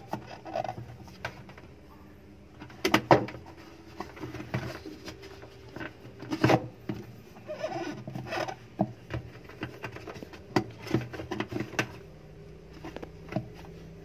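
Plastic pulsator of a Daewoo 7 kg top-loading washing machine being gripped and worked by hand to pull it off its shaft: irregular clicks, knocks and rubbing of plastic, loudest about three and six and a half seconds in.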